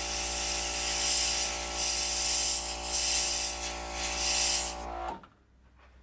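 Dual-action airbrush spraying paint: a loud, steady hiss that swells and dips as the trigger is worked, over the steady hum of its air compressor. Both stop suddenly about five seconds in.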